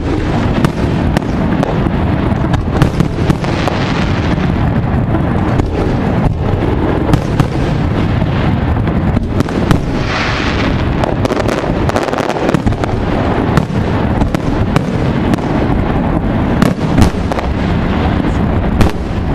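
Aerial firework shells bursting in a continuous barrage: many booms and bangs in quick succession over a dense rumbling wash, with a brighter burst about ten seconds in.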